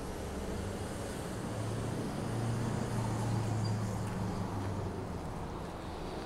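City street traffic with the low drone of a passing city bus engine, which grows louder about two seconds in and then fades.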